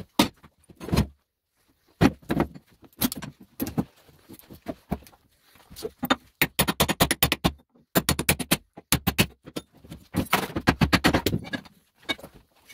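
Hammer blows on a small electric motor's cast aluminium housing clamped in a steel vise, cracking it off the copper-wound stator. The metal-on-metal strikes come in quick runs with short pauses between them, fastest a little past the middle.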